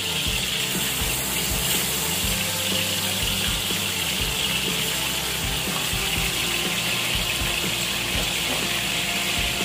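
Chicken breast frying in a little oil in a pan: a steady sizzle with many small crackling pops.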